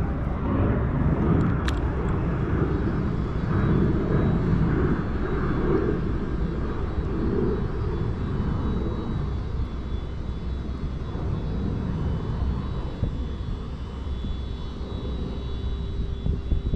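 Jet airliner passing overhead: a steady roar that slowly fades, with faint steady tones near the end.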